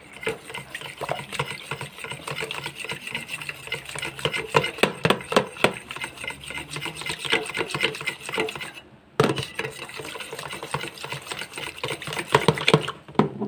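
Wire whisk beating a runny egg, milk, oil and yogurt batter in a plastic container, the wires clicking and scraping against the sides in quick strokes, with a brief pause about nine seconds in.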